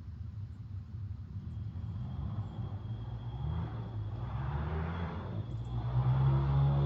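YX160 single-cylinder four-stroke pit bike engine revving, its pitch rising a couple of times and growing louder toward the end as the bike comes closer; its valve clearances freshly set to 0.004/0.006.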